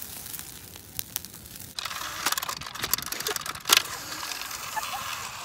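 Brush fire crackling with scattered pops for the first couple of seconds. Then a yellow cordless battery chainsaw runs close by, a dense high rattling whir that stops suddenly near the end.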